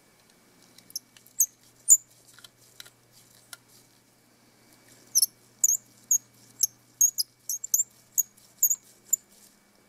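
A precision screwdriver driving tiny screws into the metal frame of a Canon PowerShot A4000 camera. A few short clicks and squeaks come early. Past the middle there is a run of short high squeaks, about two a second, as the driver turns.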